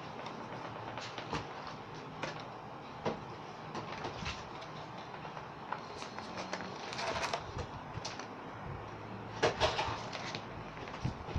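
Plastic doll packaging being handled and cut with scissors: scattered clicks and crinkles, with louder clusters about seven seconds in and again near ten seconds.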